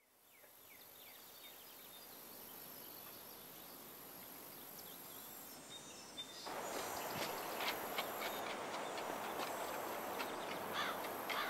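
Faint outdoor garden ambience fading in: a steady hiss with small birds chirping. About six seconds in it steps up louder, with short sharp ticks.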